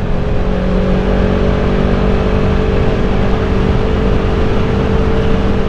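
2016 Kawasaki Ninja 650's parallel-twin engine running at a steady cruise, its pitch holding even, with wind noise rushing over the rider's helmet.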